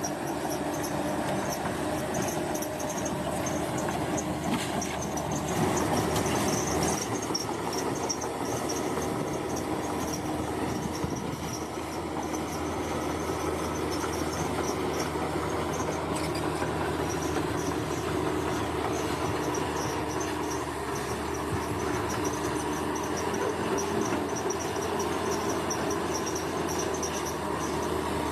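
Bulldozer's diesel engine running steadily under work, with insects chirping in a pulsing high band.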